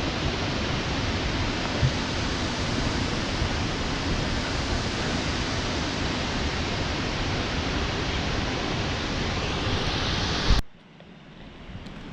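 Steady roar of a large waterfall's falling water, which cuts off abruptly about ten and a half seconds in, leaving a much quieter outdoor background.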